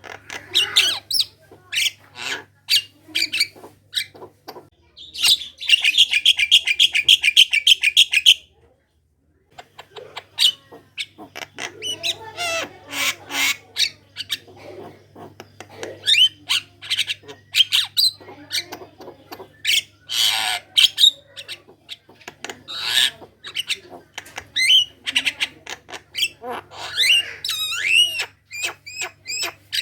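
Javan myna chattering in a long, varied song of harsh squawks, whistles and clicks, with a fast buzzing trill about five seconds in and a short break just before the ten-second mark. A faint low hum runs underneath.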